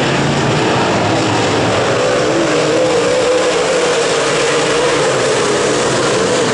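Late model race cars' V8 engines running hard at racing speed, a loud continuous engine noise whose pitch wavers slowly up and down as the cars lap.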